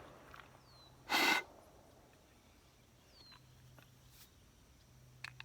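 A single short breathy puff, like a person blowing or exhaling hard, about a second in. A small bird gives a brief falling chirp three times, with a few faint clicks near the end.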